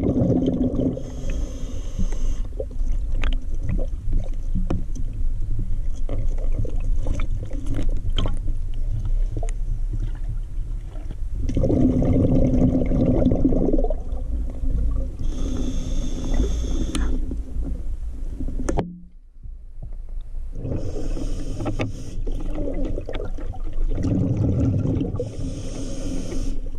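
Underwater audio of a scuba diver breathing through a regulator, heard through the camera housing: several bursts of bubbling exhalation over a steady low rumble of moving river water.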